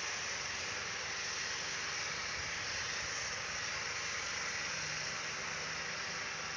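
A Hydra mobile crane's engine running steadily while it lifts a concrete mixer machine: an even hissing noise with a faint low hum underneath.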